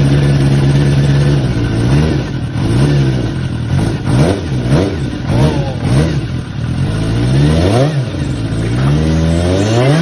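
Kawasaki Zephyr 400's air-cooled inline-four on hand-bent short exhaust pipes. It idles steadily, then is revved in a string of quick throttle blips, ending in two longer rising revs.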